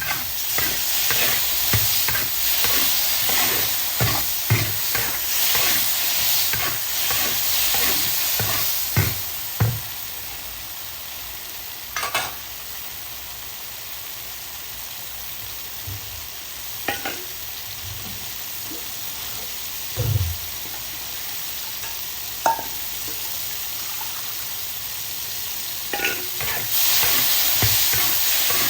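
Food sizzling in a hot wok while a metal spatula stirs it, scraping and knocking against the pan. The sizzle is louder for the first ten seconds and again near the end, quieter in between.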